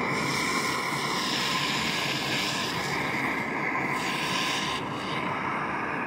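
Handheld gas torch flame running with a steady rush, burning clogged oil and carbon out of a small two-stroke hedge trimmer's muffler.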